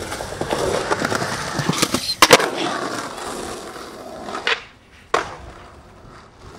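Skateboard wheels rolling, with a cluster of sharp board clacks a little over two seconds in. The rolling fades out after about four and a half seconds, with two more single clacks near the end.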